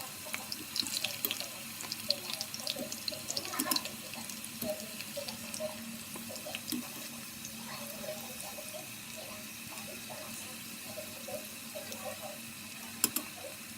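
Potato strips deep-frying in hot oil in a pot: a steady sizzle with scattered bubbling. A few sharp clicks are heard, about a second in, near 4 seconds, and near the end.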